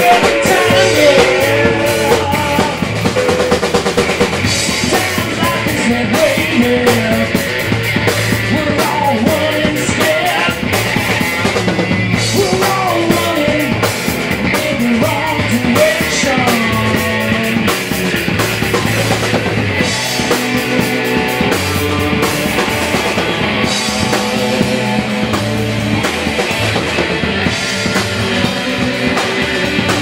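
Live rock band playing at full volume: electric guitars over a drum kit, with no break in the music.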